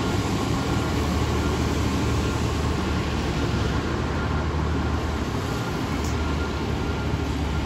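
Fire engine's diesel engine running steadily as the truck reverses slowly, a constant low hum with an even wash of noise over it.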